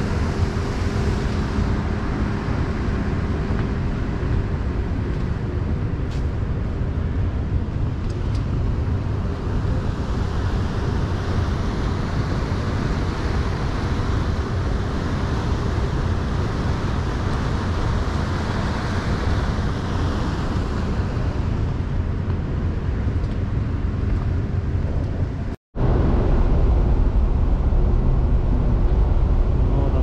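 Steady running noise of a moving vehicle: a low rumble with an engine hum. It cuts out for an instant near the end and comes back with a heavier low rumble.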